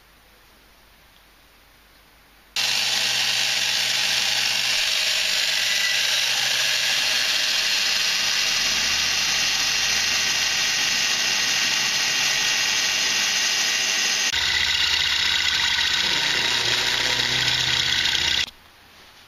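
Drill press running and drilling 8.5 mm holes through a small metal bracket clamped in a machine vise, a steady whine of several pitches. It starts suddenly about two and a half seconds in, changes sound at a cut about fourteen seconds in, and stops suddenly near the end.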